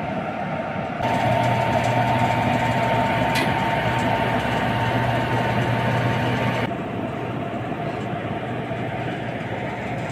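WAP4 electric locomotive's steady machinery hum with a constant high whine. It gets suddenly louder about a second in and drops back suddenly later on.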